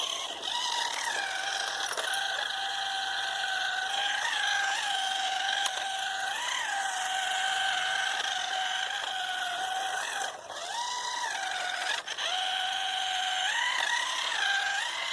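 Electric motor and gears of a toy RC Lamborghini whining steadily, the pitch rising and falling briefly several times as the throttle changes, with two short drops in level a little over two thirds through.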